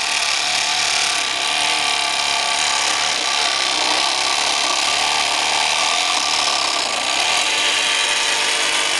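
Small electric tabletop craft jigsaw running steadily while its blade cuts through thin wood.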